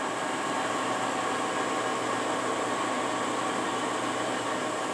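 Steady hum of running machinery: an even hiss with a few faint constant tones in it, unchanging throughout.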